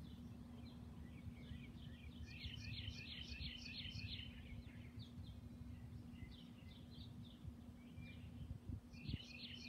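Small birds chirping in quick runs of short high notes, the longest run about two seconds in and another near the end. Underneath are a low rumble and a faint steady hum.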